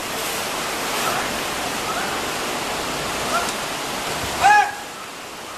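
Steady rushing of river water, with a few brief calls that rise and fall in pitch over it; the loudest comes about four and a half seconds in.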